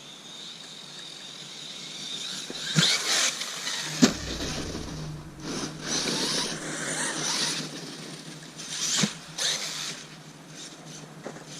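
Arrma Kraton 6S brushless RC truck driving: a high electric-motor whine at first, then repeated loud bursts of motor and tyre noise with a few sharp knocks, the loudest about four seconds in.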